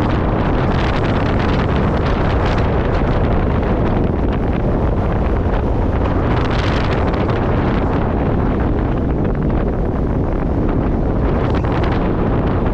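Loud, steady wind buffeting the camera microphone during a fast ski descent, with the hiss of skis running over snow.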